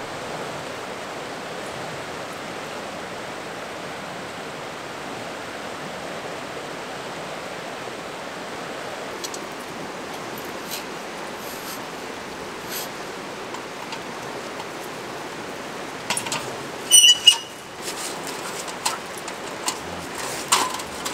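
A river rushing steadily over rapids. Near the end come a few sharp metallic clanks and clicks as a folding metal camp table is unfolded and set up, the loudest pair about seventeen seconds in.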